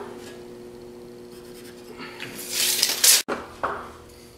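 Hand tools handled against a drywall: a scraping rub that builds for about a second, starting a little after two seconds in, then a short knock.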